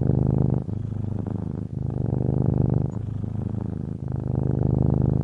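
A domestic cat purring, a low rapid buzz that swells louder and softer in turns, about every second.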